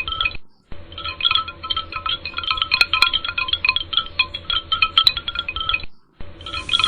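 Background music of quick, bright, plinking notes over a steady low hum. It drops out abruptly twice for a fraction of a second, and a short hiss of noise comes in at the very end.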